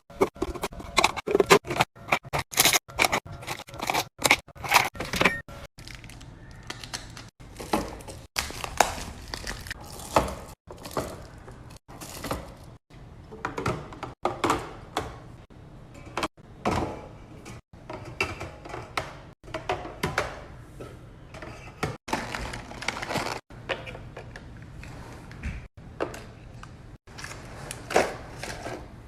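Containers and food items being set down, slid and stacked in a refrigerator: irregular knocks, taps and scrapes of plastic and glass, with music during the first several seconds.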